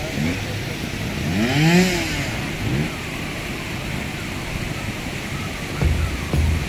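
Trial motorcycle engine blipped, revving up and dropping back several times, the biggest rev about two seconds in. Near the end a low throbbing starts, likely background music coming in.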